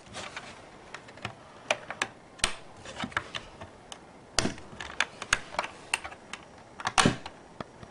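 Irregular plastic clicks and scrapes as fingers pry a snap-in plastic adapter insert out of a clock radio's iPod dock, with the loudest click near the end.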